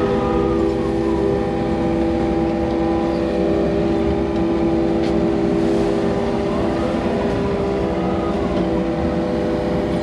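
Hydraulic excavator running under load, heard from inside its cab: a steady engine rumble with a held multi-tone whine as the boom swings and the bucket works, and a few faint clicks.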